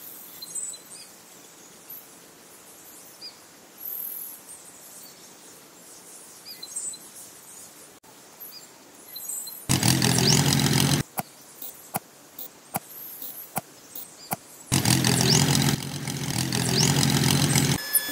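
A tractor engine sound that starts and stops abruptly twice: a short burst about ten seconds in and a longer stretch of about three seconds near the end, with a few sharp clicks between. Faint bird chirps come before the first burst.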